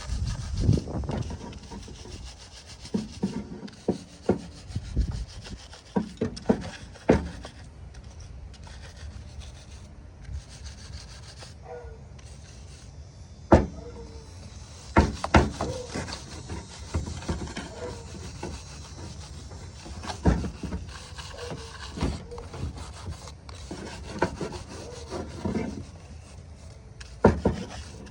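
Scraping and scrubbing of caked sawdust and bar-oil gunk off a DeWALT 60V MAX brushless battery chainsaw, broken by irregular knocks and clicks as the saw and tool are handled.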